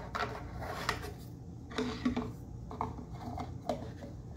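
Soft, scattered clinks and taps of small objects being handled, with a few brief, faint voice sounds about two seconds in.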